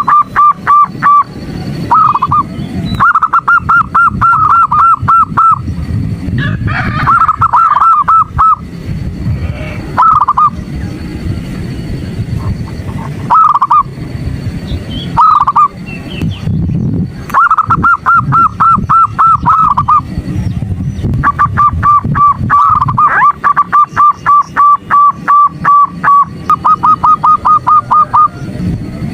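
Female zebra dove (perkutut) giving its rapid staccato calling notes, a luring call that stirs males to sing. The notes come in runs of several a second, with short single bursts between, over a steady low rumble.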